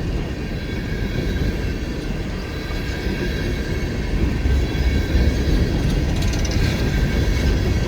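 Empty coal hopper cars rolling past on the rails as the train picks up speed: a steady rumble and clatter of steel wheels over the track.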